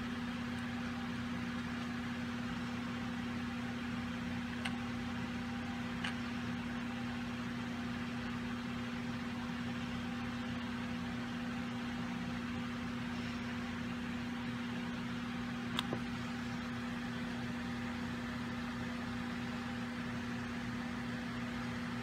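A steady background hum with one constant low tone over an even hiss, with a few faint clicks about five, six and sixteen seconds in.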